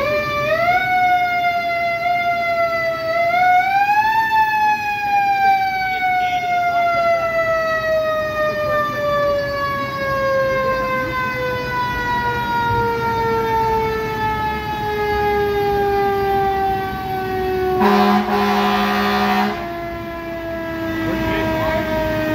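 Fire truck siren winding up in a few quick steps to a peak about four seconds in, then sliding slowly and steadily down in pitch. A horn blasts once for about a second and a half near the end.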